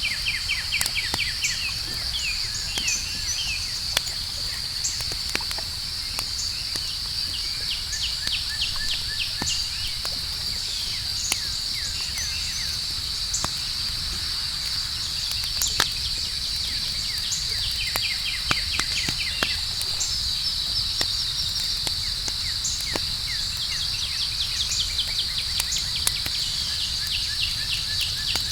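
Campfire crackling with scattered sharp pops, set against a steady, high chorus of night insects such as crickets. Runs of rapid chirping come and go every few seconds.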